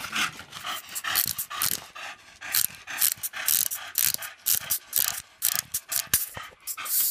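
Wind-up toy's clockwork mechanism clicking rapidly and irregularly, held close to the microphone, mixed with sounds from the dog.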